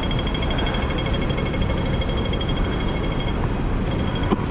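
City street noise: a steady low rumble with a rapid, even ticking that drops away briefly a little past three seconds in, then returns.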